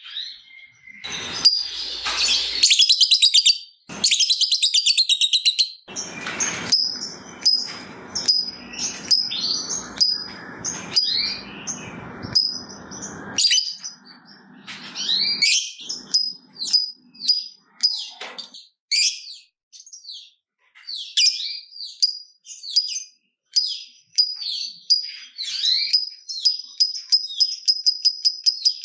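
Lovebird chattering: a long, fast rattling chatter (the 'ngekek') through the first half, then a string of separate sharp chirps and quick sweeping calls.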